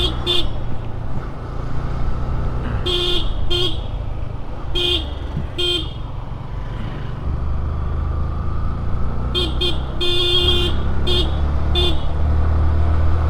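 Vehicle horn sounding a series of short toots of the same pitch, mostly in pairs, with one longer honk about ten seconds in. Under them runs a steady low rumble of motorcycle engine and wind.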